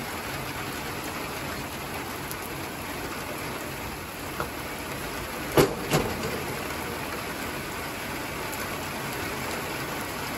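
Steady rain falling, an even hiss, with two sharp knocks a little past halfway.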